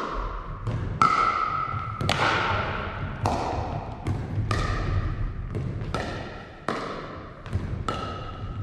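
Pickleball doubles rally: paddles strike a plastic ball and the ball bounces on a wooden gym floor. Each sharp pock comes every half second to a second and rings on in the echo of the large hall.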